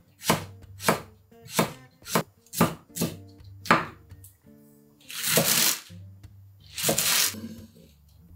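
Chef's knife chopping green onion on an end-grain wooden cutting board: about seven single cuts in the first four seconds, then two longer scraping sounds.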